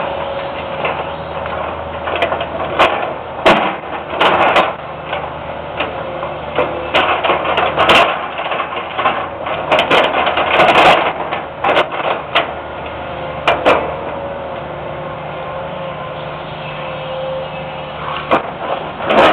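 Hitachi EX200 excavator's diesel engine running steadily with a constant whine, while brush and branches crack and snap repeatedly as the machine piles them, the cracks clustering in bursts through the middle.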